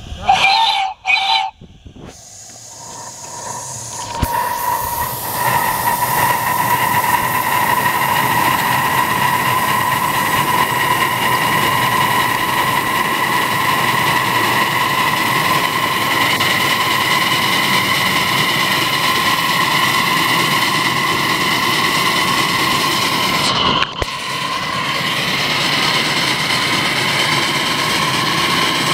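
Live-steam scale Climax geared locomotive: two short whistle toots at the start, then steady steam hissing and the noise of the train running on the track, with a constant high ringing tone through it.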